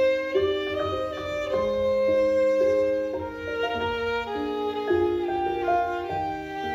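Violin playing a slow, sustained melody, bowed, over piano accompaniment, several notes ringing together and changing every second or so.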